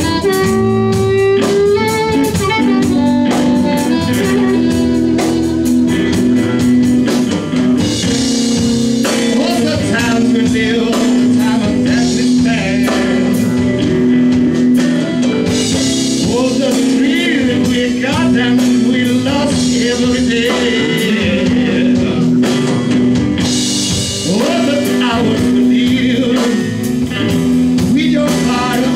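Live blues band: a harmonica amplified through a handheld bullet microphone plays long held and bent notes over electric guitars and a drum kit with cymbals.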